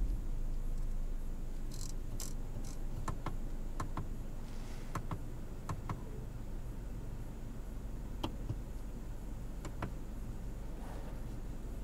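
Steady low hum inside a BMW 318i's cabin, with scattered light clicks.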